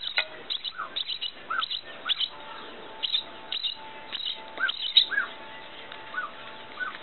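Baby blackbird chirping over and over: clusters of short, high cheeps with a few lower, arched notes in between.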